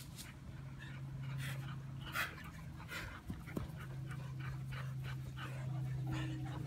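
Dog panting in quick, regular breaths, over a steady low hum.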